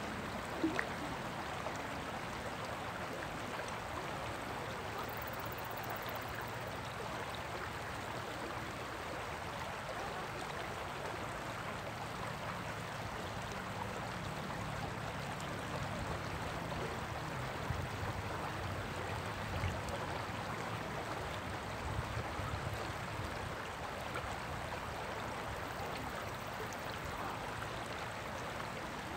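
Shallow stream rippling over rocks in a riffle, a steady even rushing. A low rumble sits underneath it through the middle stretch.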